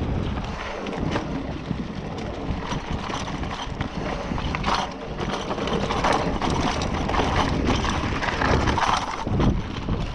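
Scott Spark 960 full-suspension 29er mountain bike riding fast over a dirt and stone trail: tyres crunching on the ground with frequent knocks and rattles as the bike hits stones, over a steady rush of wind on the microphone.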